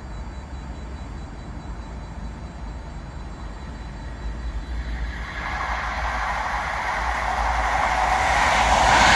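ScotRail HST (InterCity 125), led by a Class 43 diesel power car, approaching at speed. Its engine and running noise grow steadily louder from about five seconds in, peaking at the end as it reaches the microphone with a high steady whine.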